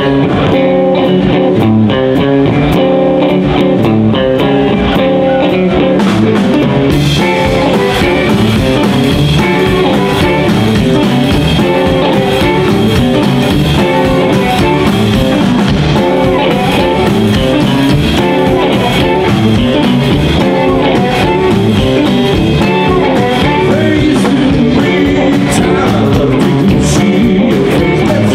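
Live blues band playing: electric guitars over upright double bass and drum kit. The cymbals come in and fill out the sound about seven seconds in.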